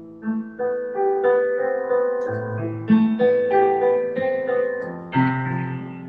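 Slow piano melody over sustained chords, played on a digital keyboard, with notes ringing on and a new chord struck about every second or so.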